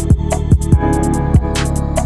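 Instrumental music with a drum beat, with kick drum thumps and snare hits over sustained bass notes.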